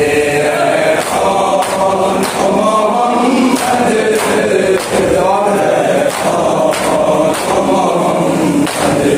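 A crowd of men chanting a noha, a Shia mourning lament, in chorus. Sharp hand slaps of matam chest-beating strike in a steady rhythm under the singing.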